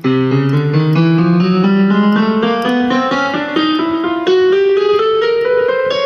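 Roland Sound Canvas SK-88 Pro keyboard being played in a keyboard voice: a long run of quick notes that climbs steadily in pitch.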